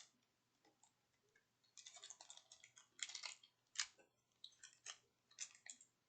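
Faint clicking and crinkling from a pack of gaming dice in plastic packaging being handled, busiest in the middle.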